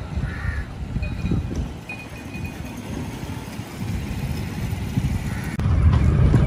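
Low, irregular rumble of wind and road noise on a moving two-wheeler ride, getting louder about five and a half seconds in.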